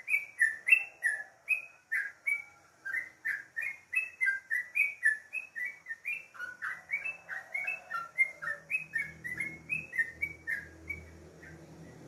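Yellow-vented bulbul singing: a long, even run of short, clear chirping notes at about three to four a second, each note sliding quickly up or down, stopping about a second before the end.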